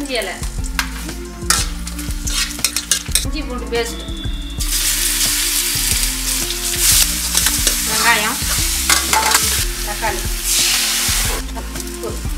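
Whole spices and bay leaves frying in hot oil in a metal kadai, with a steel ladle clinking and scraping against the pan. From about five seconds in, a loud sizzle as ginger-garlic paste hits the oil and is stirred, easing off near the end.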